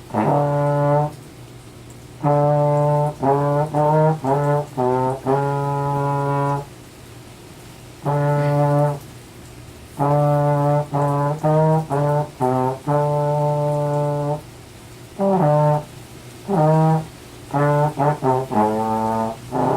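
A brass instrument playing a practice passage in its lower-middle range: phrases of short detached notes and longer held notes, broken by rests of a second or two.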